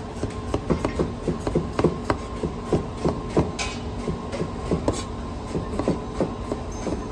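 Chinese cleaver chopping sliced bitter gourd against a thick plastic cutting block, quick knocks about four a second, over a steady hum.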